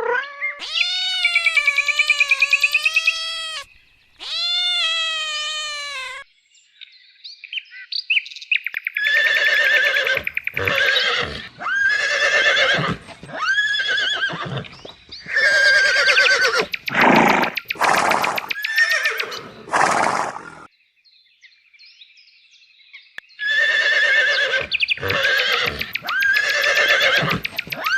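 Horses whinnying again and again from about nine seconds in, each call shaky and trembling, with a short pause a little past the twenty-second mark. They are preceded by two long, wavering animal calls in the first six seconds.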